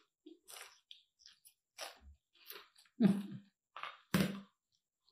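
Close-miked eating of spicy Samyang carbonara instant noodles with crispy fried baby crab: noodles slurped in, then chewing and crunching. The sounds come as a string of short noises, with two louder ones about three and four seconds in.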